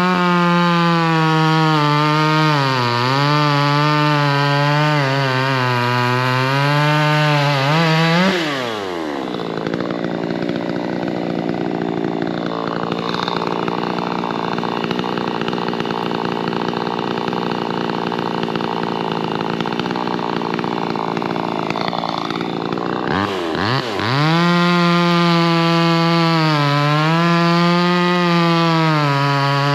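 VEVOR 58cc two-stroke gas chainsaw running at high revs. About eight seconds in, the engine pitch drops and turns rougher for about fourteen seconds as the chain cuts into wood under load. Near the end it revs back up.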